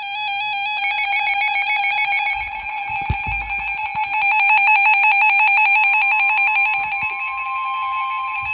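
Emergency Alert System alarm tone announcing a severe thunderstorm warning: an electronic tone pulsing rapidly, with a second steady, slightly higher tone joining about six seconds in. A brief thump about three seconds in.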